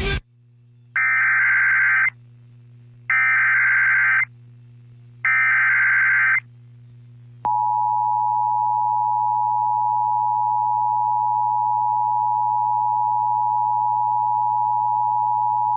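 Emergency Alert System activation: three one-second bursts of SAME digital header data, about a second apart, then the steady two-tone EAS attention signal held for about eight seconds. The header announces a severe thunderstorm warning.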